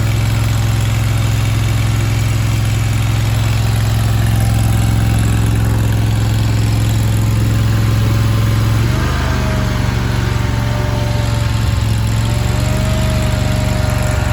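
Vorx NL380 mini skid steer's 23 hp RATO V-twin engine running steadily. About nine seconds in, its note changes and a thin whine comes in.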